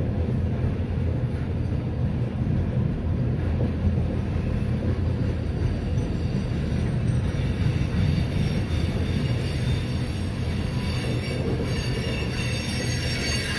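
Freight train of open-top hopper cars rolling past, a steady rumble of steel wheels on the rails.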